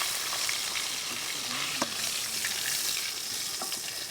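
Pork and beef sizzling as they cook, a steady hiss with a few small crackles.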